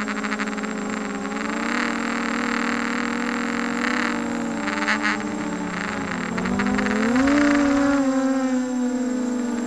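Brushless motors and propellers of a 250-size ZMR racing quadcopter whining, as picked up by the camera on the quad's own frame. The pitch wavers with the throttle and rises about seven seconds in, where the sound is loudest for a second or so, then settles.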